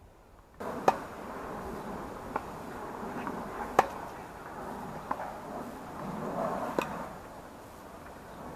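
Tennis ball struck back and forth with rackets in a rally: sharp pops about every one and a half seconds, alternating louder and fainter, over a steady background hiss.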